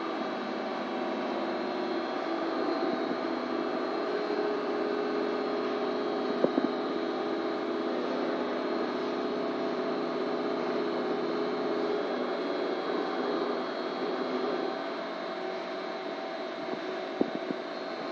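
Steady machine hum made of several held tones, broken by a sharp click about six and a half seconds in and a short cluster of clicks near the end.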